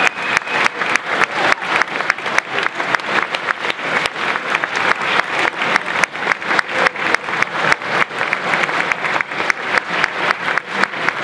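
A large audience of students clapping, steady dense applause with individual sharp claps standing out.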